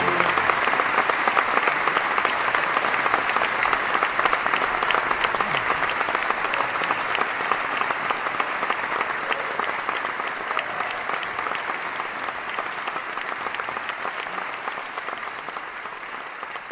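Audience and choir applauding, a dense patter of clapping that slowly fades away.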